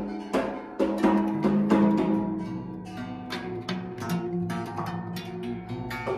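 A long wooden zither with movable bridges, like a gayageum, its strings plucked by hand. Single notes come about three a second, each ringing on.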